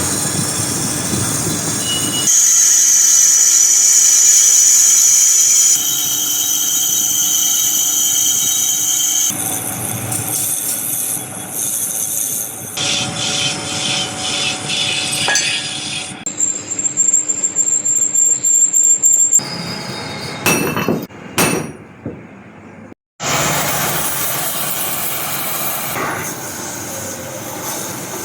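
Metal-machining noises in short sections that change abruptly every few seconds, with steady high-pitched whining and squealing from cutting or turning metal.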